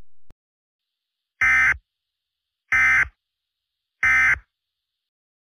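Emergency Alert System SAME digital data bursts: three short, identical screechy bursts about a second and a half apart, the end-of-message code that closes an EAS broadcast.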